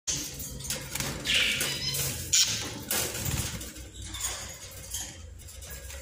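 Budgerigars chattering: irregular bursts of high chirps and warbles, loudest about a second in and again about two and a half seconds in.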